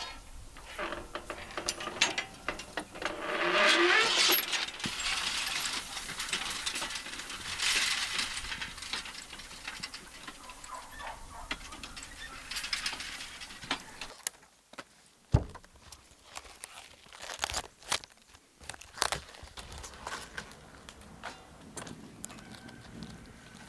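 Metal rattling and clinking, with scattered knocks and noisy shuffling stretches.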